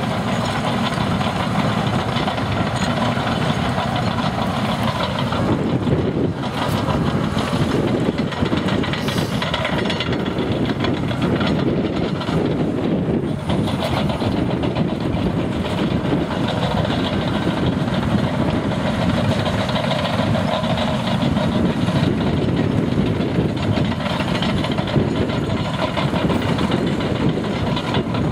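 Heavy construction machine's engine running steadily, with a few short knocks a third of the way in.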